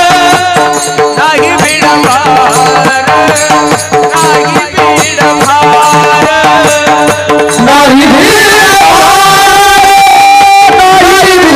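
Kirtan music: devotional singing with drum and cymbal percussion keeping a steady beat, then a long held sung note from about eight seconds in.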